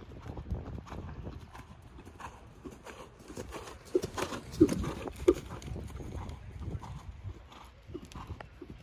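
Hoofbeats of a ridden dressage horse on sand arena footing, a steady rhythmic thudding that grows loudest about halfway through as the horse passes close by.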